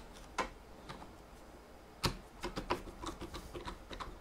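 Screwdriver adjusting the corner-bracket screws of a sectional picture frame: faint, scattered light clicks and ticks, a couple of single clicks first and then a quicker run of small clicks in the second half.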